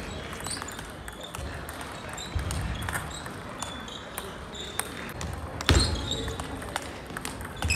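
Table tennis balls clicking irregularly off bats and tables in a large sports hall, with two heavier thuds, one about six seconds in and one near the end.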